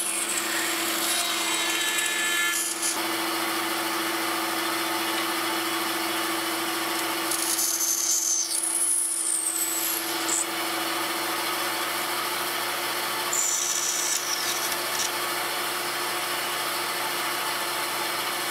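Bandsaw running with a steady hum, its blade cutting walnut in short relief cuts. A higher rasp rises during the cuts, near the start, around the middle and about three-quarters through.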